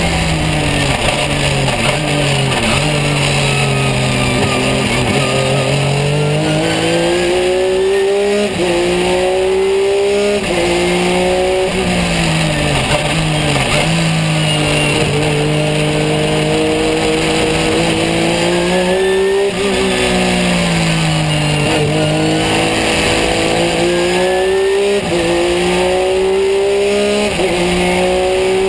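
Porsche 911 GT3 R race car's flat-six engine heard onboard at racing speed: the pitch climbs hard, drops sharply at each quick sequential upshift and climbs again, then sweeps down under braking with downshifts, over and over through the corners.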